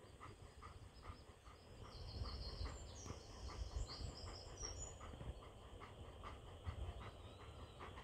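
Wind buffeting the microphone, with a small bird's high twittering song for about a second and a half a few seconds in, over soft steady panting from a dog.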